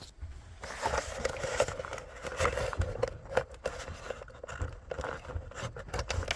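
Rustling and scraping with many small clicks from hands handling a small USB-to-Type-C adapter.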